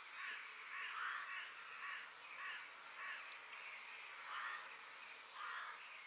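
Recorded forest ambience: a bird gives repeated short, rough calls, about ten of them, some in quick pairs, over faint high chirping of smaller birds and a steady background hiss.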